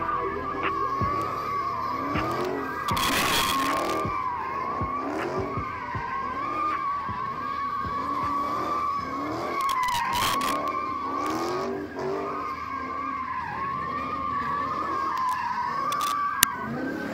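A drifting car's tyres squeal in one long, wavering screech while its engine revs up over and over. Twice, about three and about ten seconds in, there is a louder rush of noise.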